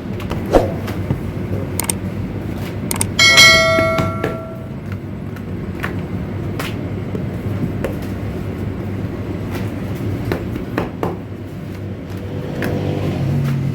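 Bakery machinery running with a steady low hum and scattered knocks and clicks. About three seconds in, a piece of metal is struck and rings like a bell for over a second, the loudest sound here.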